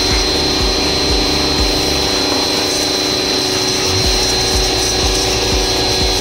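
Daewoo DAX65-100 1600 W electric high-pressure washer running steadily, its motor and pump whirring while the jet of water hisses against a car wheel.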